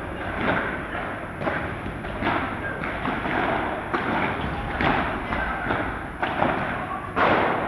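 Padel balls being struck by rackets and bouncing, a string of sharp knocks roughly once a second that echo through a large indoor padel hall.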